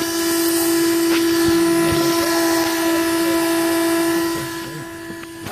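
A steady electric whine over a hiss from the powered-up OFNA GTP2E 1/8 electric RC car, close to the microphone. It eases off about a second before the end and stops shortly after.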